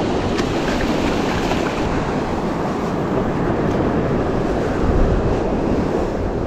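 Steady wind buffeting the microphone over the wash of surf breaking on the shore.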